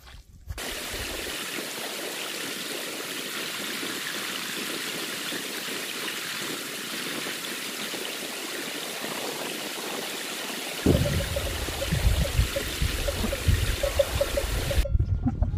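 A shallow mountain stream running over rocks, a steady hiss of water. About eleven seconds in a low throbbing comes in underneath, and near the end the water sound cuts off abruptly.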